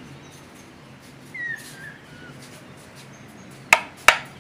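Two sharp clicks of a plastic wall rocker switch being pressed, about 0.4 s apart near the end. Earlier a bird gives one short falling chirp.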